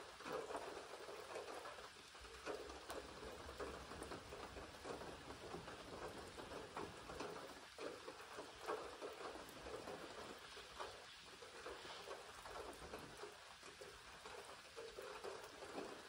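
Rain falling steadily: an even hiss with a dense patter of many small drops.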